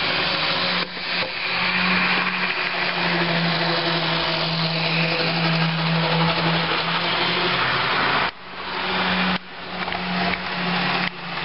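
A small electric motor running with a steady hum and whir. In the last few seconds it is cut off and spun back up three times.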